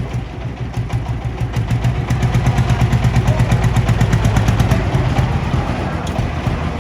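Diesel engine running with a steady, rapid chugging beat that grows louder about two seconds in.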